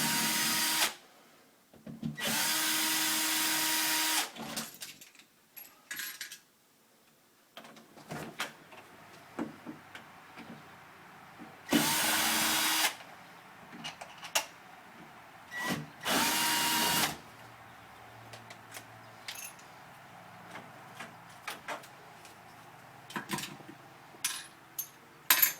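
Power drill running in four short bursts, one to two seconds each, backing out the screws of an old deadbolt. Light clicks and knocks from handling the lock parts come between the bursts.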